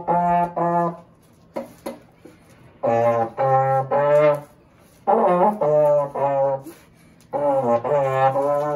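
Slide trombone playing short phrases of separate notes, with pauses of about a second between phrases.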